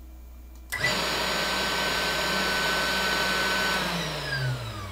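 The stock spindle motor of a Genmitsu PROVerXL 6050 CNC router being test-run: it starts suddenly about a second in and runs at a steady speed with a high whine. Near the end it is switched off and winds down, its pitch falling away.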